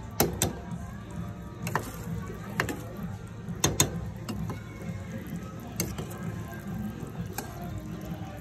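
Metal ladle stirring shrimp paste in a stainless-steel pot, knocking and clinking against the pot's side and rim about eight times at irregular intervals, two close pairs of sharp clinks being the loudest.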